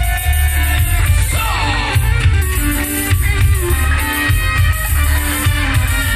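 Grupero band playing live through a concert PA, with a strong pulsing bass beat.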